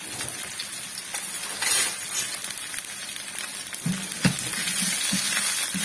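Sliced onions and green chilli sizzling in hot oil in a frying pan. From about four seconds in, a metal ladle stirs them, knocking and scraping against the pan.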